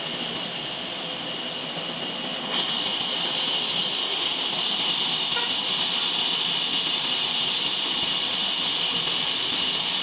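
Large band sawmill running steadily with a high hissing whine; about two and a half seconds in the sound steps up suddenly to a louder, brighter hiss and holds there.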